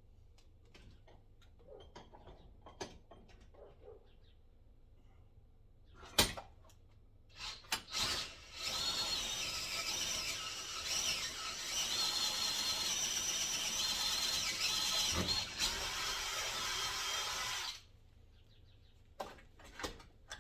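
Power drill running for about ten seconds, boring out a hole in square tubing, its whine shifting in pitch as the bit cuts, then stopping abruptly. Before it come a few light handling clicks and a single sharp knock.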